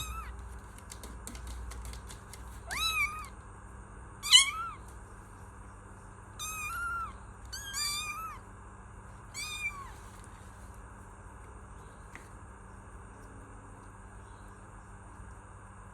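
Kitten meowing: about five short, high meows, each rising then falling in pitch, the second one the loudest. The meowing stops about ten seconds in.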